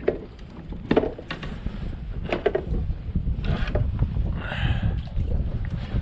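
Wind buffeting the microphone in a steady low rumble, with scattered light knocks and clicks and a few brief squeaks.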